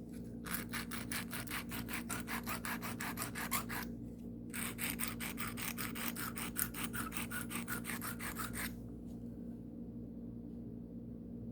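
Carbon-steel pocket-knife blade scraped rapidly back and forth across the coarse side of a sharpening stone, in two runs of quick even strokes with a short pause about four seconds in; the strokes stop near nine seconds.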